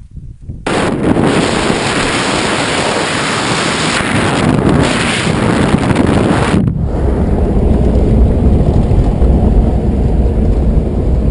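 Wind rushing over a camera on the bonnet of a car driving on a dirt road, mixed with tyre and road noise, starting abruptly less than a second in. At about six and a half seconds the hiss drops away, leaving the steady low rumble of engine and road noise heard from inside the cabin.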